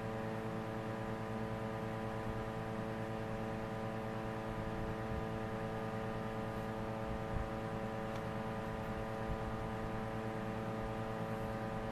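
Steady electrical hum with a stack of even overtones, unchanging throughout, with one faint tick about seven seconds in.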